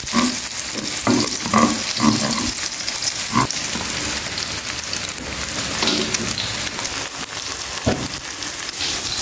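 Beaten duck eggs sizzling in hot oil in a frying pan as a spatula stirs and scrambles them. A couple of sharper knocks of the spatula against the pan stand out from the steady sizzle.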